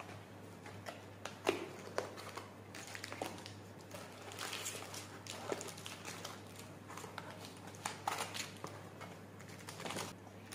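A small cardboard box handled and opened by hand: irregular rustling, scraping and clicking of the cardboard flaps and the crinkly packaging inside, over a steady low hum.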